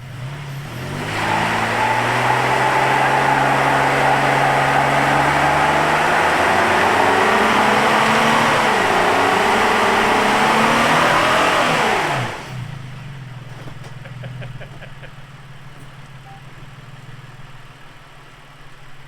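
Holden Rodeo ute doing a burnout: engine revving hard with the rear tyres screeching, held for about eleven seconds. About twelve seconds in, the revs fall away and the screech stops, leaving the engine idling.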